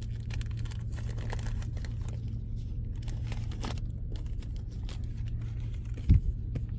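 Crinkling and tearing of a 1990 Score baseball card pack's wrapper as it is torn open with the teeth, in many small crackles over a steady low hum. A single low thump about six seconds in is the loudest sound.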